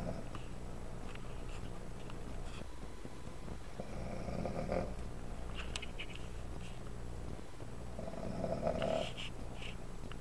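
Snoring: two long, rasping snores about four seconds apart, over a steady low hum.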